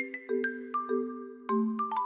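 Background music: a light melody of short struck notes, several a second, over held lower chords.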